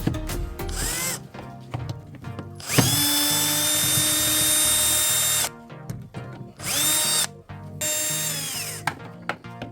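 Power drill-driver running in three bursts: one long run of about two and a half seconds, then two shorter ones, each spinning up with a rising whine, the last winding down. These are screws being driven out while the washing machine is taken apart.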